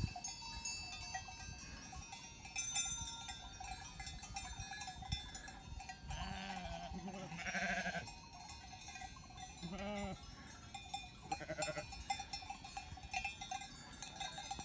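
Grazing livestock bleating three times, one long call and two short ones, over the steady clanking of animal bells.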